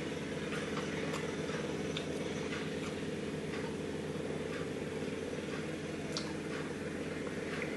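Steady low electrical hum of room tone, with faint, irregularly spaced ticks.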